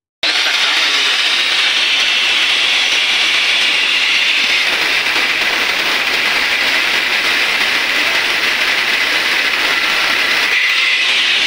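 Angle grinder cutting through steel at a tractor's mudguard mount, a steady high-pitched grinding that starts suddenly and holds an even pitch.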